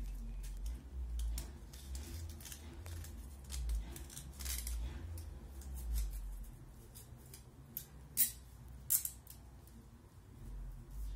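A kitchen knife scraping and cutting thin sticks in short, irregular strokes, with a few sharper clicks and snaps about eight and nine seconds in, over a low rumble.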